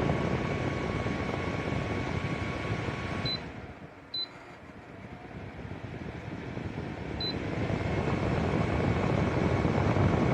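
VCK bladeless tower fan blowing with a steady whoosh and a faint motor whine. About three seconds in it gives short high beeps as its buttons are pressed; the airflow falls away sharply, then builds back up over a few seconds, with a third beep near the two-thirds mark.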